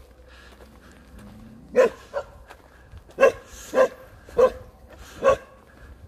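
Black-and-tan Jindo dog barking: about six sharp barks, beginning about two seconds in and spaced roughly half a second to a second apart.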